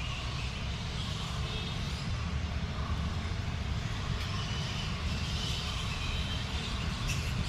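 A flock of birds chirping and chattering together over a steady low rumble.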